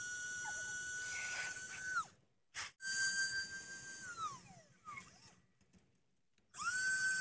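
Small electric motor of an RC tipping trolley's lift, whining at a steady high pitch. It winds down in pitch as it stops about two seconds in and again about five seconds in, then starts up again near the end.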